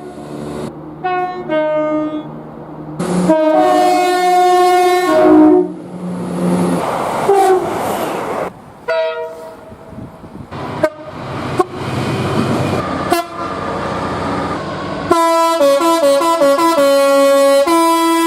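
Train horns from several recordings, joined by abrupt cuts: short chord blasts, then a longer held blast. Next comes a stretch of noisy running-train sound with brief horn notes. Near the end, a loud multi-note chord horn sounds in a series of short pulses.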